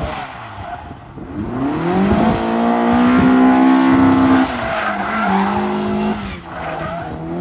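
Classic Mini's four-cylinder engine on individual throttle bodies revving hard in first gear as the car accelerates past. Its pitch rises, holds high and steady for about two seconds, then drops sharply to a lower steady note and falls away as the driver backs off.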